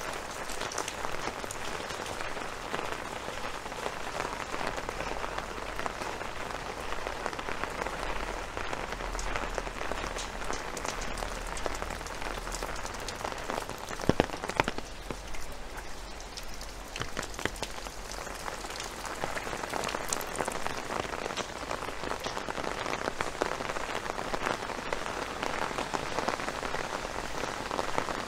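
Steady rain with many close drop impacts, and a couple of sharp knocks about halfway through.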